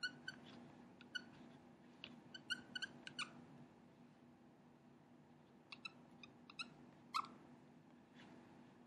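Dry-erase marker tip squeaking on a whiteboard while writing: short squeaks in quick clusters, with the longest and loudest about seven seconds in.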